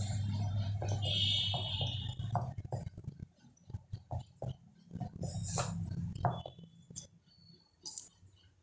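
Hand mixing chunks of cucumber with chili, mustard powder and salt in a stainless steel bowl: soft scrapes and clicks as the pieces rub and knock against the steel, dying away near the end.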